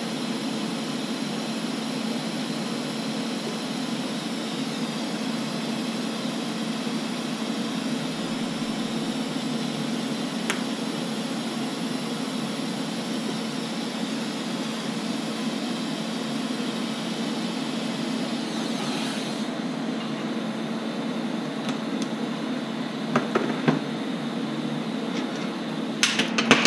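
Steady hiss of a TIG welding arc over a constant low hum, the arc stopping about two-thirds of the way through. A few clicks and knocks of metal parts being handled near the end.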